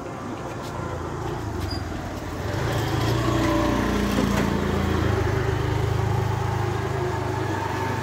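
An engine running steadily with a low hum, growing louder about two and a half seconds in and staying loud.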